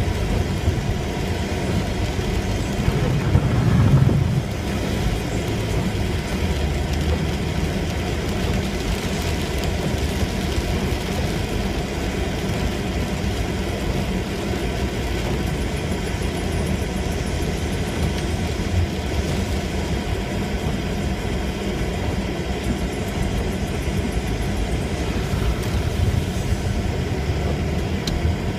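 Steady road and engine rumble inside a car driving through heavy rain, with rain noise on the windshield. It swells briefly louder about four seconds in.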